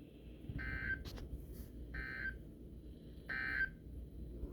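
Three short buzzing data bursts, about a second and a third apart, from a NOAA Weather Radio receiver over a low hum. They are the EAS/SAME end-of-message code that closes the special marine warning broadcast.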